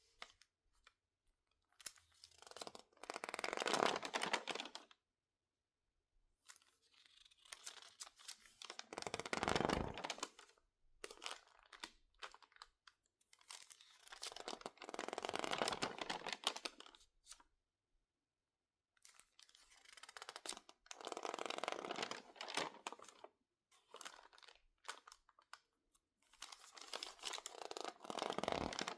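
Stiff, water-damaged magazine pages crinkling and crackling as they are handled, in slow swells of a few seconds each with silent pauses between them, about five times.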